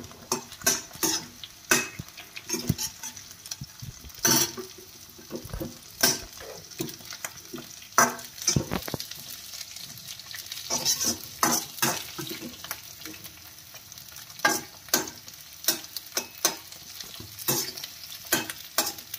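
Onion cubes sizzling in hot oil in a metal kadhai, stirred with a perforated metal skimmer that scrapes and clinks against the pan in irregular strokes over a steady frying hiss.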